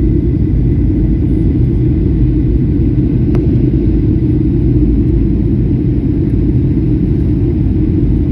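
Steady low rumble of a jet airliner's cabin noise: engines and airflow heard from inside the aircraft.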